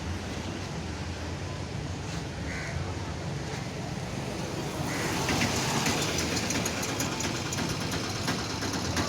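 Steady low engine rumble of motor vehicles, becoming louder and hissier with a crackling edge about five seconds in, with a faint crow call early on.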